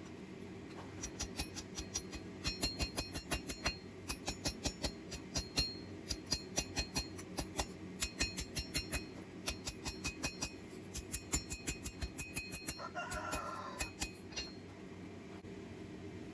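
Blacksmith's hammer striking on the anvil: rapid ringing blows in runs with short pauses, stopping about two seconds before the end. A rooster crows once, about thirteen seconds in.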